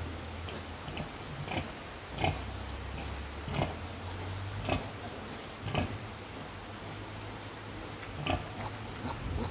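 Pigs grunting while a sow nurses her litter of piglets: short grunts and squeaks come about once a second over a steady low hum.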